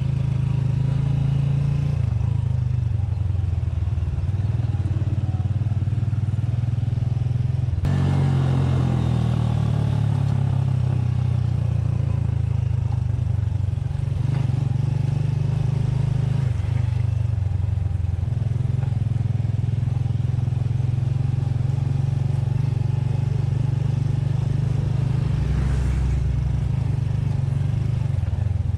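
Small motorcycle's engine running under way, heard from the rider's seat, with its note stepping up and down several times as the rider works the throttle.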